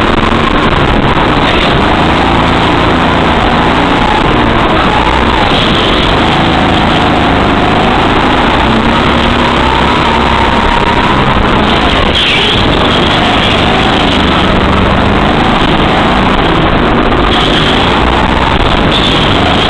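Go-kart engine running under driving, its pitch rising and falling repeatedly as the throttle is opened and eased through the track's corners. Loud throughout.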